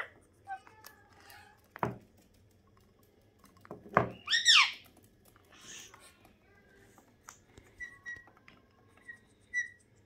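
Pet parrots (Alexandrine parakeets and cockatiels) feeding at a bowl: a few sharp knocks and clicks, one loud call that sweeps up and down about four seconds in, and short high chirps in the last few seconds.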